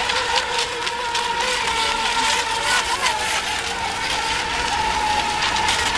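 Several RC racing boats running flat out on the water, their motors making a steady, slightly wavering high whine under a rough hiss.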